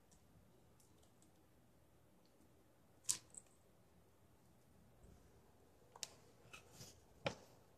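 Near silence broken by sharp clicks and short crinkles from the torn cardboard box being handled: a pair about three seconds in and several more near the end.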